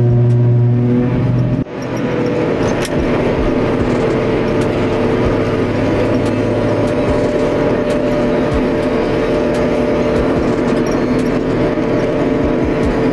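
Self-propelled forage harvester working in grass, heard from inside its cab: a steady engine and machinery drone with a hum, broken by a brief dip about a second and a half in.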